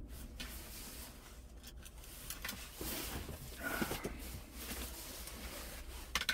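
Faint rustling and a few small clicks and knocks over a low steady hum inside a truck cab, the loudest click near the end.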